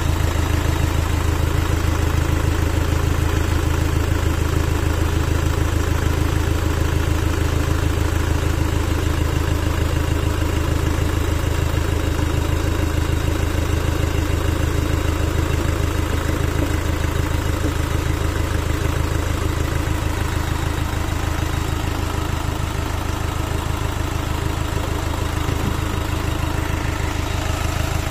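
Diesel engine idling steadily at an even speed, with a strong low hum.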